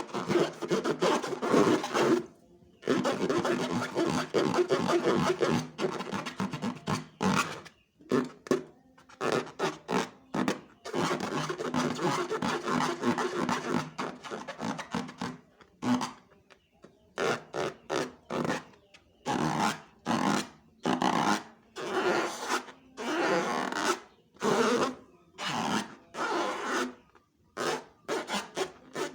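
Hands squeezing and stretching sticky slime, making wet squelching noises in irregular bursts with short pauses between them.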